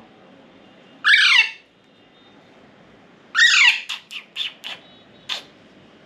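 Hand-reared Alexandrine parakeet chick giving two harsh squawks that fall in pitch, about a second in and again after three seconds. The second squawk is followed by a quick run of short, sharp calls. These are begging calls from a chick still asking for more food after a feeding.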